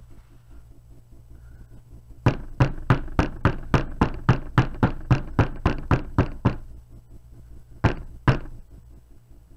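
Wooden soap loaf mold full of raw soap batter being rapped down on a tabletop, a run of quick knocks at about four a second, then two more near the end. The tapping works trapped air bubbles out of the batter so the bars don't set with little holes.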